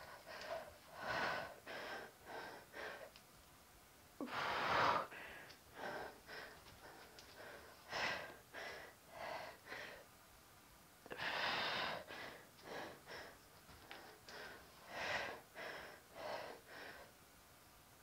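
A woman breathing hard from exercise: quick, noisy breaths about one every half second to second. Longer, louder exhales come about four, eight, eleven and fifteen seconds in.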